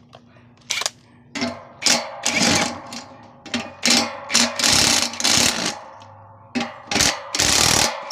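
Makita cordless power driver running in about ten separate bursts, some brief and some nearly a second long, driving screws to fix the satellite dish mount to a wooden fascia board.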